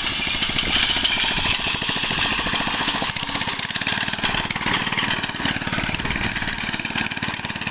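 An engine running steadily with a fast, even firing beat, typical of the machinery used for harvesting rice.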